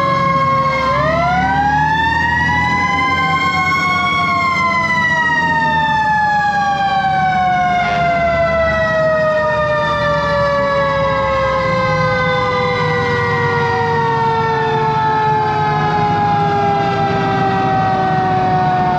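Fire engine sirens: two siren tones, one winding up over about three seconds, then both slowly winding down in pitch. Beneath them runs the low, steady sound of the truck's Detroit Diesel 8V71 two-stroke V8.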